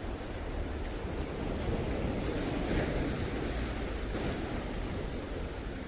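Sea waves washing in, one surge swelling about two seconds in, with wind rumbling on the microphone.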